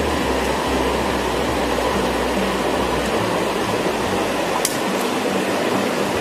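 River water rushing over rocky rapids, a steady hiss, with low held tones underneath that shift every second or so. Two faint clicks come about two thirds of the way in.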